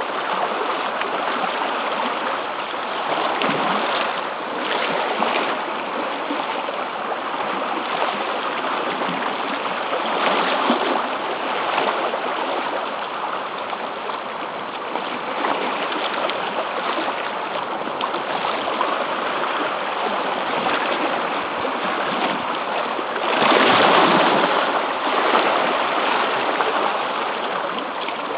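Sea water rushing and washing against a rocky shore as a steady hiss, with a louder surge about three-quarters of the way through.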